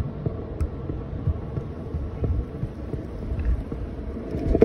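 Rumble of a scooter rolling over rough pavement, with wind buffeting the microphone. The low noise runs steadily under scattered small knocks, and one louder knock comes near the end.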